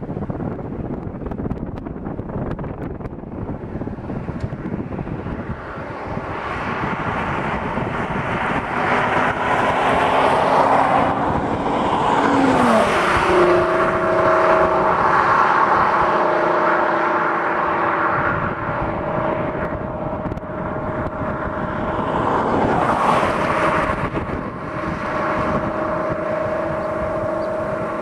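2004 VW R32's 3.2-litre VR6 through a full Billy Boat exhaust with test pipe and high-flow cats, passing at highway speed. A rising rush peaks about ten seconds in, the engine note drops sharply in pitch as it goes by, then a steady exhaust drone carries on as the car pulls away.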